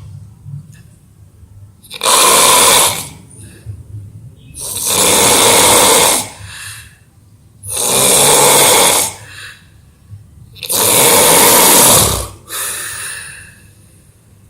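An exhausted sleeper snoring loudly: four long, rasping snores about three seconds apart, one on each breath.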